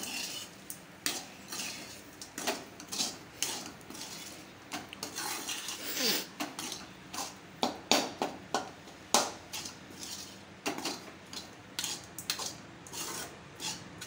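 Steel spoon scraping and knocking against a metal kadai while tempered rice is stirred and tossed, in quick irregular strokes.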